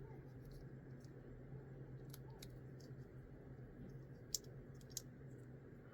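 Faint, scattered clicks and taps of small plastic model-kit parts being handled and pushed together, the sharpest about two-thirds of the way through, over a steady low electrical hum.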